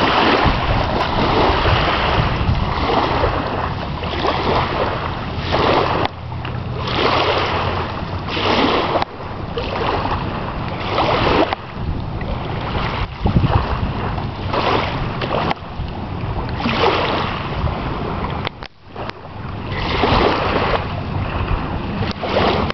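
Wind gusting across the microphone over small waves lapping on a lake, rising and falling in loudness with a short lull near the end.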